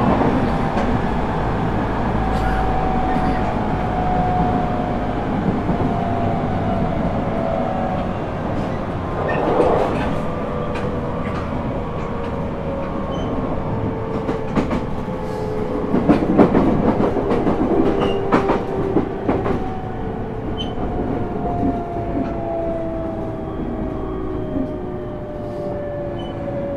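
Toyo GTO-VVVF inverter and traction motors of a JR East E127-0 series electric train heard inside the car as the train brakes. A whine of several tones falls slowly in pitch as the train slows, over wheel rumble, with clicks at the rail joints and two louder spells of rumbling.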